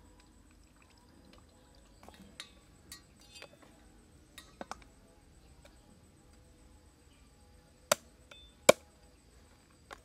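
A plucked bird is handled and rinsed in a metal basin, with small splashes and clinks. Later, twice in quick succession, a large knife strikes sharply through the bird onto a wooden chopping board, the second chop the louder, with a lighter knock just after.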